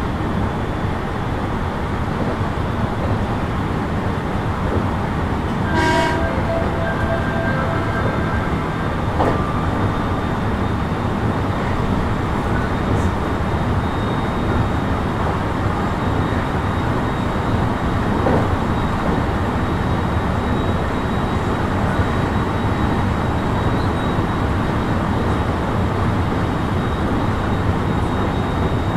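JR West 223 series 2000 subseries electric train running between stations, heard from inside the car: steady wheel and rail rumble with a faint steady high tone. About six seconds in there is a short sharp sound followed by ringing tones.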